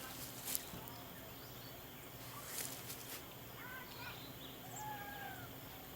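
Quiet open-field ambience with a few small clicks and rustles of handling, then a bird's short arching whistled calls about four and five seconds in.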